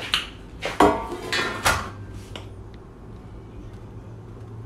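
Metal kitchenware clattering: a stainless steel baking pan knocked and set down on the counter, with several sharp clanks in the first two and a half seconds, then quieter with a faint steady low hum.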